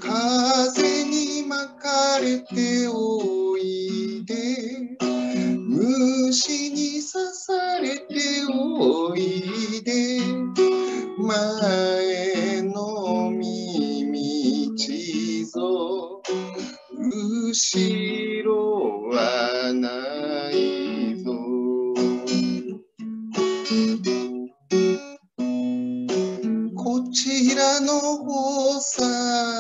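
A man singing to his own strummed acoustic guitar. The voice and guitar drop out for a moment twice, about two-thirds of the way through.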